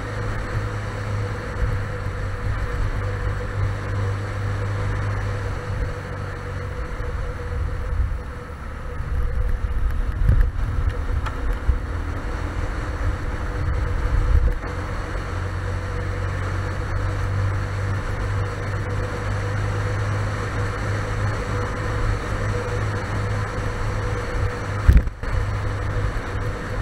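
Small motorcycle engine running steadily on the move, with wind and road rumble from riding a dirt and gravel track. The rumble turns rough and uneven for several seconds in the middle, and there is a single sharp knock near the end.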